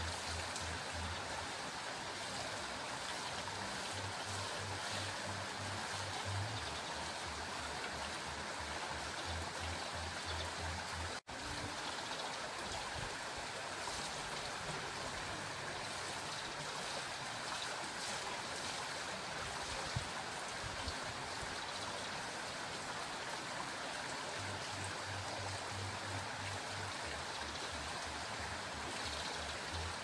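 Water pouring off a turning wooden waterwheel: a steady rush of splashing water, broken off for an instant about eleven seconds in.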